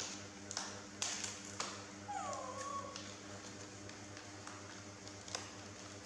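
A baby long-tailed macaque gives one short high call that falls in pitch, about two seconds in, among a few soft taps and rustles.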